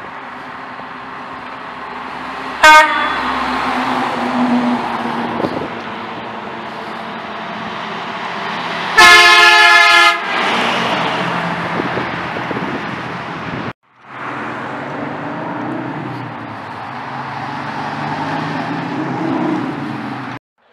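Work trucks driving past with engine and tyre noise, broken by two horn honks: a short toot about three seconds in and a louder blast about a second long near the middle, as a vacuum excavation truck passes.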